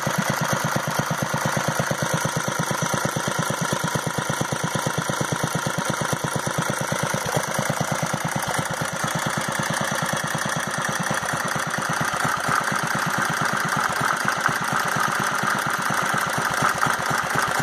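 BSA 420cc single-cylinder, air-cooled stationary engine running steadily at a fast, even chug, freshly fitted with new piston rings and a repaired oil pump. The sound turns a little louder and brighter about two-thirds of the way through.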